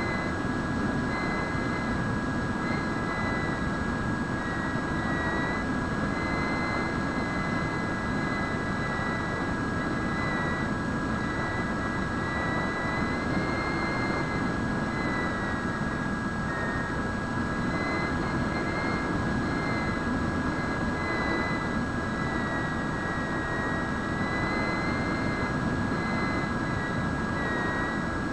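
Bixler foam RC plane's brushless electric motor and pusher propeller whining at a steady pitch that wavers slightly, under a constant rush of wind over the airframe, heard from the onboard camera in flight.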